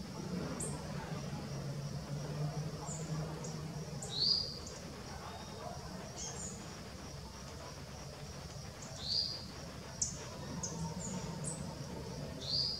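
Songbirds calling outdoors: short high chirps scattered throughout, and a louder short call heard three times, over a steady high-pitched hiss.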